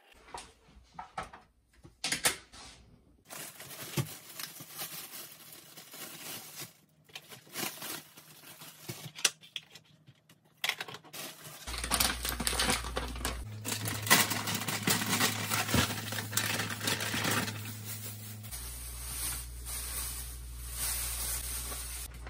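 Plastic food packaging crinkling and rustling as it is handled, among clicks and knocks of kitchen items. A steady low hum sits behind it in the second half.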